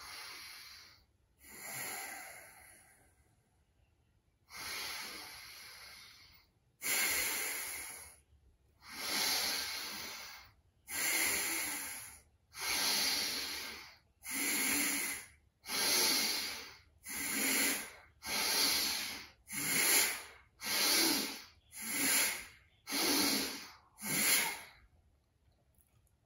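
Bhastrika (bellows breath) pranayama: a series of loud, forceful breaths. It starts with a few slow, uneven breaths, then settles into a steady rhythm that quickens to about one stroke a second before stopping near the end.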